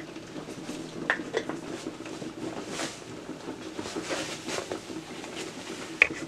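Paprika shaken from a spice jar onto raw pork chops, a few soft rattling bursts, with sharp clicks about a second in and again near the end, the last the loudest, as the jar is handled and set down on the counter.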